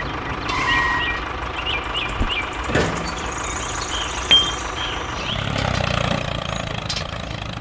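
Tractor engine idling steadily, with a few short high chirps early on and a brief sharp high tone about four seconds in.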